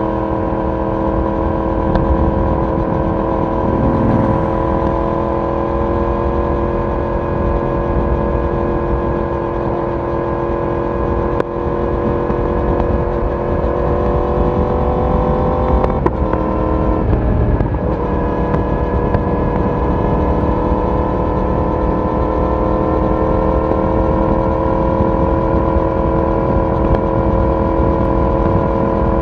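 Yamaha YZF-R1's crossplane inline-four exhaust at steady cruising speed, its note climbing slowly, breaking briefly about sixteen seconds in, then holding steady again.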